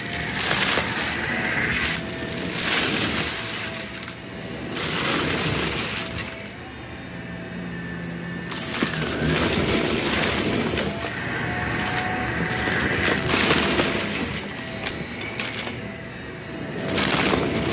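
Shark cordless stick vacuum running with a steady motor whine, its floor head crunching and rattling through a pile of seashells and coins in repeated surges as it is pushed back and forth. There is a lull of about two seconds near the middle.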